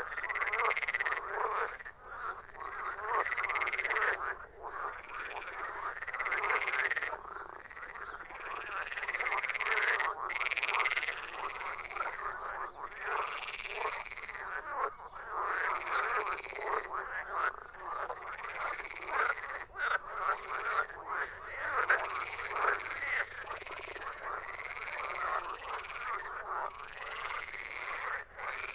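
Frogs croaking in a dense chorus, with overlapping calls that swell and repeat every second or two.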